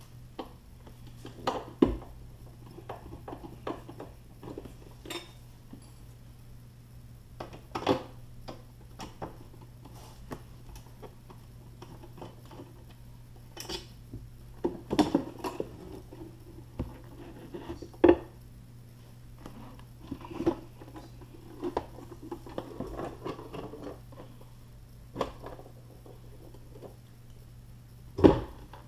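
Scattered clicks and light metallic clinks of a screwdriver and loose screws being handled, with a few sharper knocks, the loudest near the end as the amplifier box is lifted from the floor.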